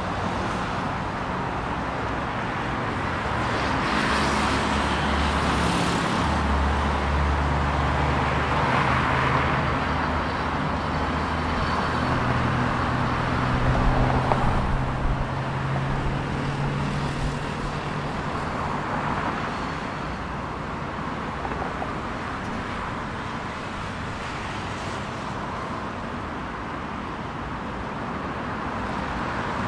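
Steady road traffic on a multi-lane avenue: cars passing with tyre noise over the low hum of engines from a line of vehicles. The traffic swells and fades, loudest about fourteen seconds in.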